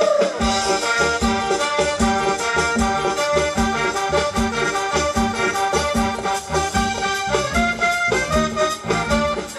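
Live Thai ramwong dance-band music in an instrumental passage: a held, reedy melody over a steady drum beat of about two strokes a second.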